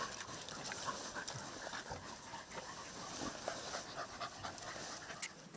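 Hunting dogs panting hard, out of breath from chasing and catching a rabbit.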